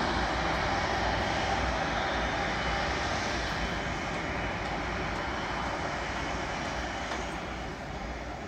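Jet engines of a twin-engine Airbus A330 airliner running as it taxis past, a steady noise that slowly fades as it moves away.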